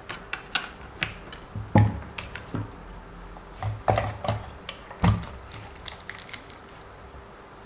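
Irregular clicks and knocks of a small plastic WLToys 144001 RC car and its parts being handled and set down on a work surface, with louder knocks about two, four and five seconds in.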